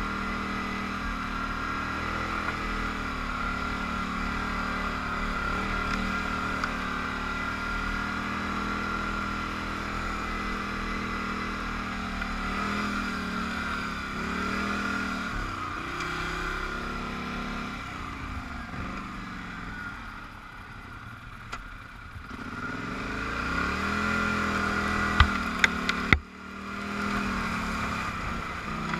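Polaris Scrambler 850 ATV's parallel-twin engine running under way, its engine speed rising and falling with the throttle. Near the end there are a few sharp knocks, then a sudden brief dip in the sound.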